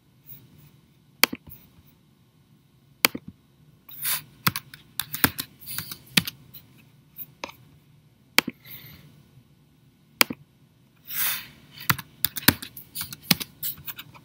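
Computer keyboard typing and mouse clicks in irregular short runs, as circle diameters are entered in a CAD sketch.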